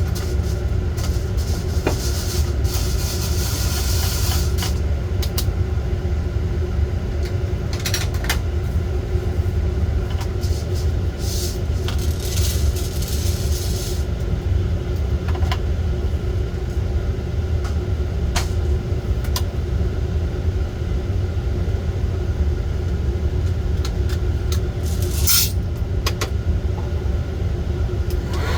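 Coffee roaster running with a steady low rumble, with a few scattered sharp clicks.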